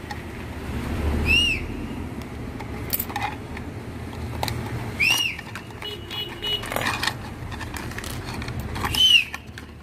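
Small parts being handled: clicks and rattles as a new fridge start relay is taken out of its box. Under it is a steady low street-traffic hum, and a short rising-then-falling chirp, like a bird's call, comes three times, about four seconds apart.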